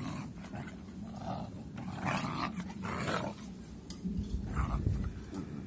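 Two puppies play-fighting, growling as they wrestle, with noisy scuffling bursts. A louder low rumble comes about four and a half seconds in.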